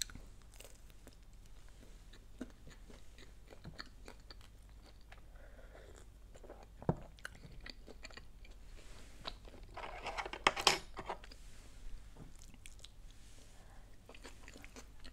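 Chewing and biting into a quesadilla, with small crunches, one sharp knock about seven seconds in and a short run of louder crunching around ten seconds in.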